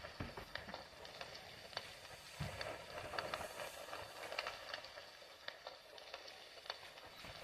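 Fire crackling, with irregular sharp pops and snaps over a steady hiss.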